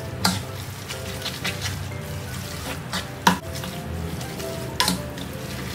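Wooden spatula stirring and scraping noodles around a nonstick wok, with a few sharp knocks of the spatula against the pan, the loudest a little past three seconds in. Soft music plays underneath.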